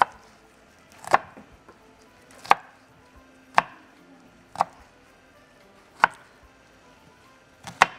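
Chef's knife quartering small pearl onions on a wooden cutting board: about eight sharp knocks of the blade on the board, roughly one a second, the last two close together near the end.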